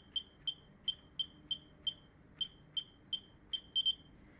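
Piezo beeper module on an ESP32 keypad lock giving a short high beep for each key pressed on the TTP229 keypad, about fourteen beeps at roughly three a second while a code is typed. The run ends with two quick beeps close together as the code is accepted.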